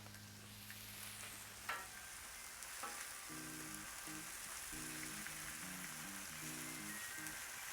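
Cheese frying on a hot Blackstone flat-top griddle, a steady sizzle, with a couple of sharp clicks about two and three seconds in. Soft background music with a simple melody comes in about three seconds in.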